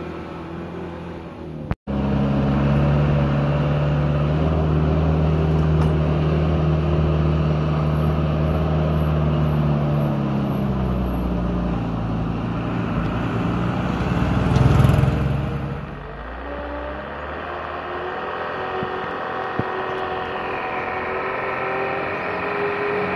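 Engine of an old sugarcane truck heavily loaded with cane, labouring up a hill road. Its drone drops in pitch about ten seconds in and swells loudest around fifteen seconds. After that it is quieter and climbs again toward the end.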